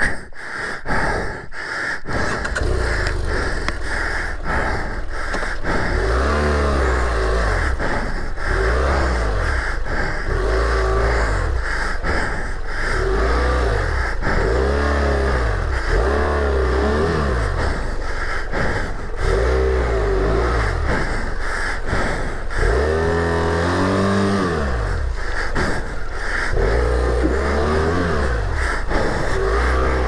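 BMW F650GS motorcycle engine revving up and falling back again and again, roughly every two seconds, under load as the bike is worked across slippery logs. A few sharp knocks come in the first couple of seconds.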